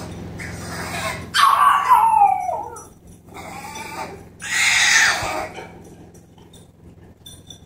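French Bulldog puppy crying like a human baby, about four cries in a row, the loudest ones about a second and a half and five seconds in, the first of them falling in pitch. She is upset at being left shut in her pen.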